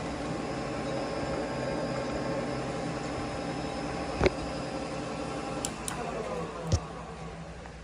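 Metal lathe running steadily under a turning cut, its motor and gears giving a hum with several steady tones, with a sharp click about four seconds in. Near the end a few more clicks come and the machine winds down, its pitch falling as the spindle slows.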